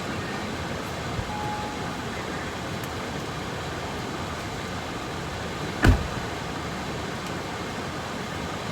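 Steady road and engine noise inside a moving pickup truck's cabin, with one sharp thump about six seconds in.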